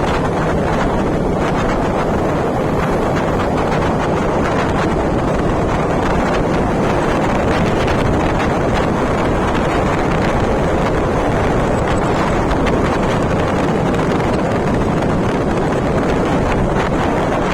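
Steady, loud wind rushing over the microphone while travelling in a vehicle, with the rumble of the ride underneath and no break in it.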